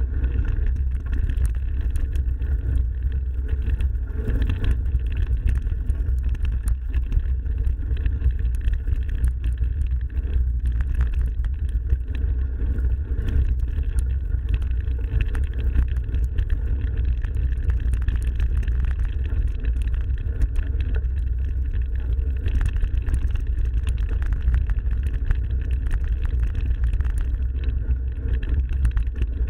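Mountain bike riding along a forest trail, heard through the camera's microphone: a steady low wind rumble with scattered clicks and rattles from the bike.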